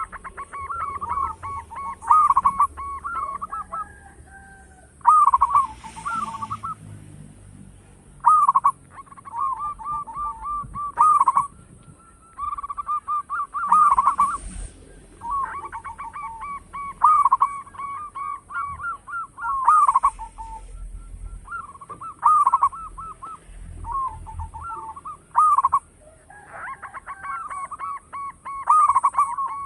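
Zebra doves (perkutut) cooing: repeated phrases of rapid stuttering notes, each opened by a louder note, coming every two to three seconds.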